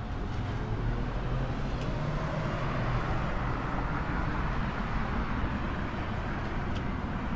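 City street traffic: a steady low rumble of cars passing through an intersection, with one car's tyre noise swelling and fading in the middle.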